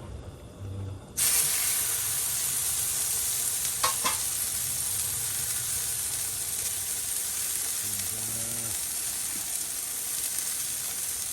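Food sizzling as it fries in a hot pan, a steady hiss that starts abruptly about a second in, with a single click a few seconds later.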